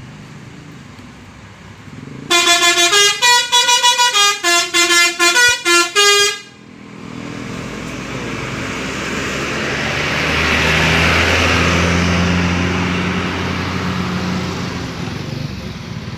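A coach's multi-tone musical air horn (a 'telolet' horn) plays a rapid run of short notes for about four seconds, starting about two seconds in. Then the bus's engine runs up louder as it pulls away and passes, easing off near the end.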